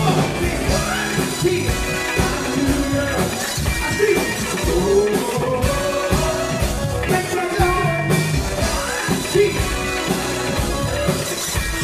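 Live band performance: male lead vocalists singing over a drum kit, electric guitar and keyboards.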